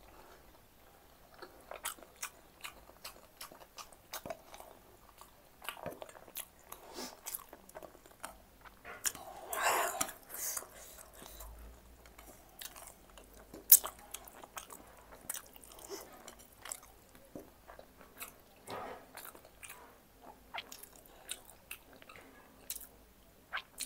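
Close-miked chewing and biting of food from a spicy bone-marrow meal, with many small wet mouth clicks and crunches. A louder stretch of eating comes around ten seconds in, and there is one sharp click about fourteen seconds in.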